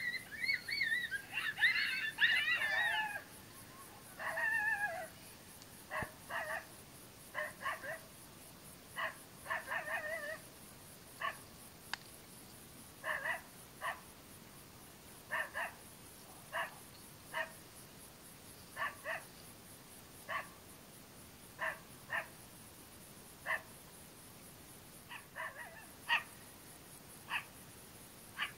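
Coyote-type calls: a wavering, whining howl for the first few seconds, then short yips or whimpers repeated roughly once a second, sometimes in pairs.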